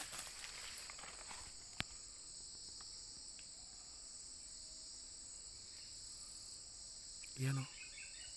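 Steady high-pitched insect drone from the forest. Light rustling comes in the first second or so, then one sharp click about two seconds in, and a short low sound near the end.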